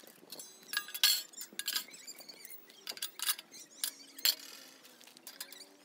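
Steel pipes and wire grill racks of a homemade pipe wood-gas stove clinking as they are handled: a quick run of sharp metallic clinks, several leaving a brief ring.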